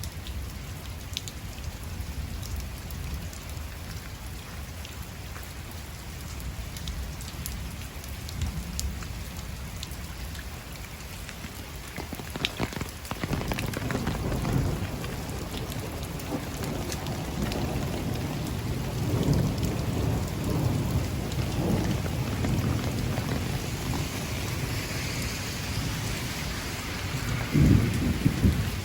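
Heavy rain falling steadily. About halfway through, thunder starts rolling and rumbling on, with a louder clap near the end.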